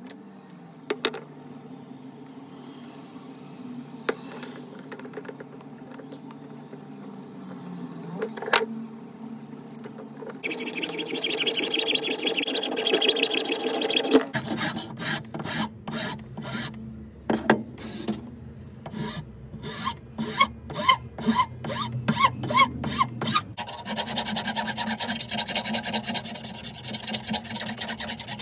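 A hacksaw cuts through wood in back-and-forth strokes, about two a second, and then a metal file rasps steadily along the wooden knife handle. Before that there is a low steady hum with a few knocks.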